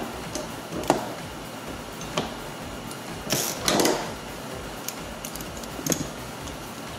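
Hand tools clicking and knocking, a ratchet with a Torx 50 bit on a seat-mounting bolt, in a few separate clicks, with a louder, longer rasping clatter about three and a half seconds in.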